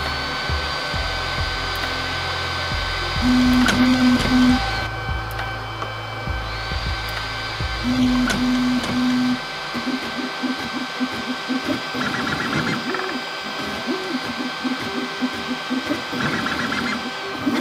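3D printer with an A1-style toolhead running its startup routine: the stepper motors whir and buzz through short moves. A high whine rises, holds, and drops away about 5 s in, then rises again about 6.5 s in. Two sets of three short low buzzes come near 4 s and 8–9 s, followed by a quick run of short stepper buzzes.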